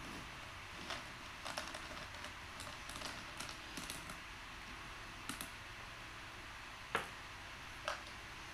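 Small hard tablets clicking and rattling in a plastic jar as a hand rummages through them, followed by two louder single knocks near the end.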